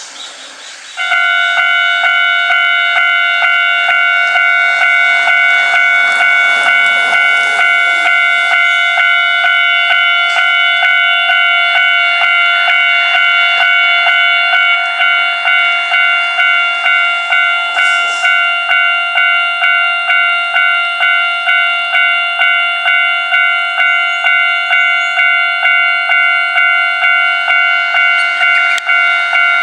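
Japanese railway level-crossing alarm ringing: the electronic crossing bell sounds its steady repeating clang. It starts about a second in.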